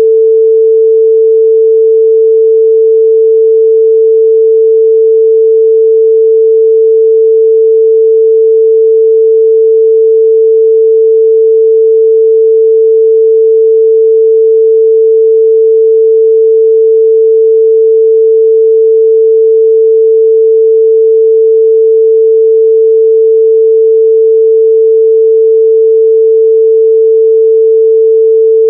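A continuous pure 445 Hz sine-wave test tone, held at one steady pitch and level.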